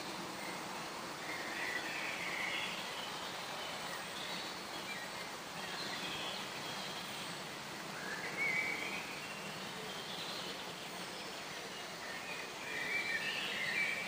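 Woodland songbirds singing several short phrases over a steady background hiss; the loudest phrases come a little past the middle and near the end.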